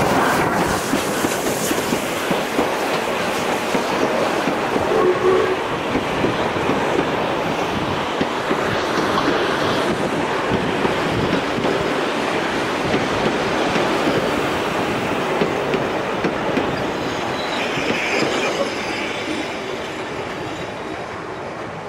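Steam-hauled passenger train rolling past close by: the ex-SAR 620-class locomotive goes by at the start, then its carriages follow, wheels clattering over the rail joints, the noise easing off near the end as the last carriage moves away.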